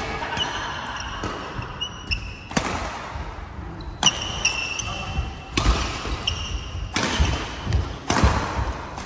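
Badminton rally: rackets striking the shuttlecock in sharp hits about every one and a half seconds, five times, with sneakers squeaking briefly on the court floor between the hits.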